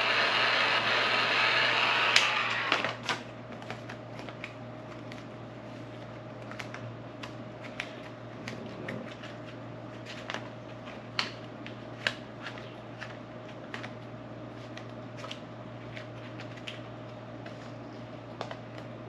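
Heat gun blowing with a steady rushing hiss, sounding as if it is about to die, then switched off about three seconds in. After that, scattered light clicks and taps over a faint steady hum.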